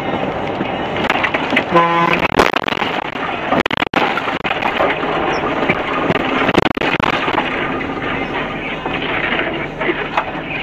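Steady vehicle and tyre noise on a rain-wet road, heard through a dashcam. About two seconds in there is a short horn blast, followed by a few sharp knocks and bangs.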